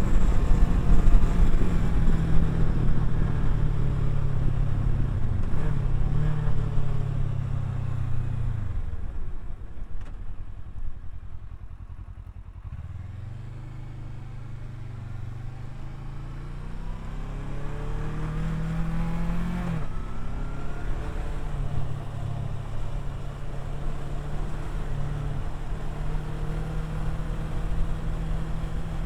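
Kawasaki Versys 650 parallel-twin engine while riding. It drops away to a low, quiet running about nine seconds in, then picks up with a rising pitch, shifts up about twenty seconds in, and runs steadily after that.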